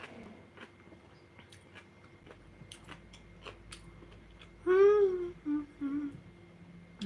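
A woman's closed-mouth humming: one longer note that rises and falls, then two short ones, a little past the middle. Before it there are only faint clicks and small sounds of eating.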